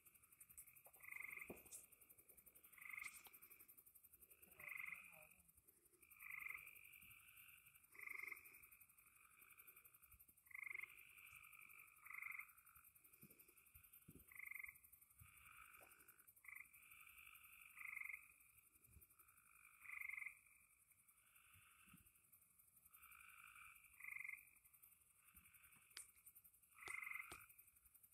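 Frogs calling faintly, short calls repeating every second and a half to two seconds.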